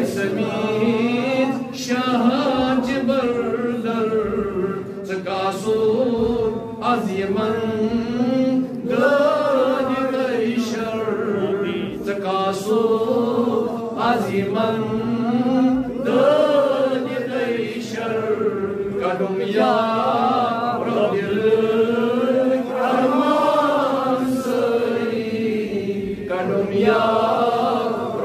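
A man chanting a munajaat, a devotional supplication, in a single voice. He sings long held phrases whose pitch slowly rises and falls, with brief breaks between them.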